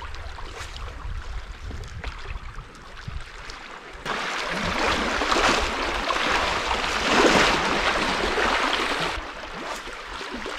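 Small sea waves washing over rocks at the water's edge: a low rumble at first, then a steady rush of water that swells about four seconds in, peaks, and eases off near the end.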